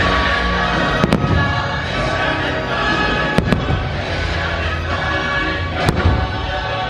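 Fireworks shells bursting over the show's music: a sharp bang about a second in, a quick pair of bangs around three and a half seconds, and another bang near six seconds.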